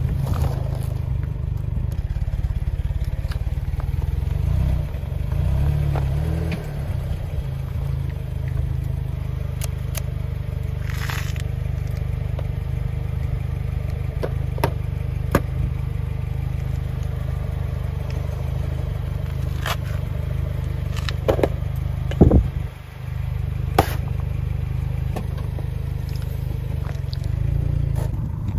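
Car engine idling steadily, with scattered sharp clicks and pops over it; the loudest pop comes about two-thirds of the way through.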